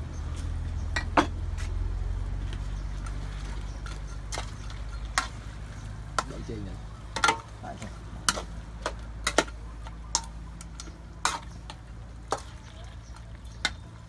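Metal spatula stirring duck meat in a steel wok, with a dozen or so irregular sharp clinks and scrapes of the spatula against the wok over a low sizzle of frying. A low steady hum runs underneath.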